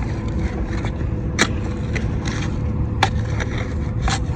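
Excavator engine running steadily with a constant hydraulic whine, while the bucket scrapes through dirt and stones, with three sharp clacks about a second and a half, three and four seconds in.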